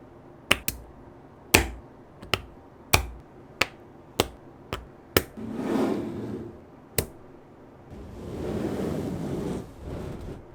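Small magnetic balls snapping together in a string of sharp, separate clicks, followed by two stretches of soft, noisy handling sound.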